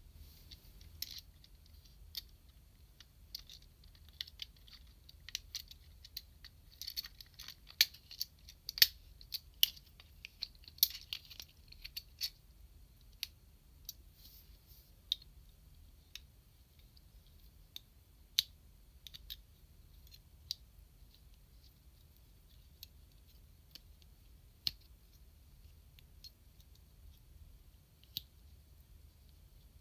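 Small plastic toy-robot parts clicking and clacking as they are handled and folded at their joints by hand. The clicks come thick for several seconds, then thin out to occasional single clicks.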